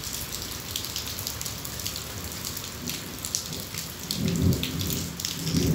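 Heavy rain falling, a steady hiss broken by many sharp splashes and drips. A low rumble comes in about four seconds in and swells again near the end.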